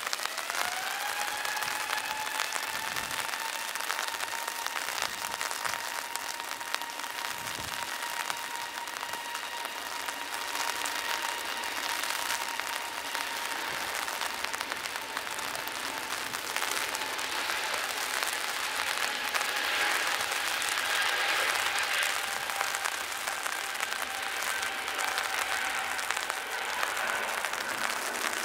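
Twin jet engines of an easyJet Airbus A320-family airliner spooling up for take-off: a whine rises in pitch in the first second, then holds steady, with a broader roar swelling about 20 seconds in as the jet climbs away. Heavy rain hisses throughout.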